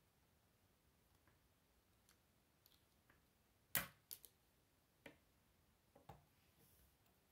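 Plastic K'Nex rods and connectors clicking as they are handled and snapped together: a handful of sharp clicks, the loudest about four seconds in, over near silence.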